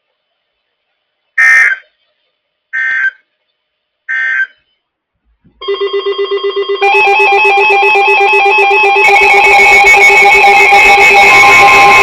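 Three short EAS/SAME digital data bursts, the end-of-message code after a NOAA Weather Radio warning. A few seconds later, weather alert radio receivers go off: a fast-pulsing beep that builds into a loud, layered mix of electronic alarm tones, growing louder, with a steady tone joining near the end.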